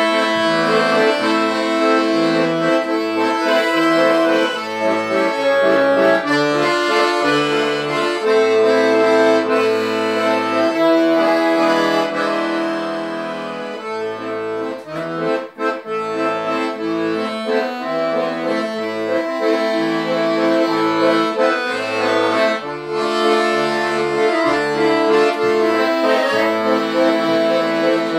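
Piano accordion playing a tune: sustained treble melody notes over a pulsing bass accompaniment. The playing eases off briefly about halfway through, then comes back to full volume.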